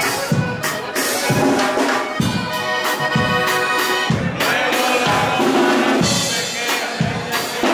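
Live band music led by a button accordion, over drums and bass with a steady beat of about one and a half strikes a second.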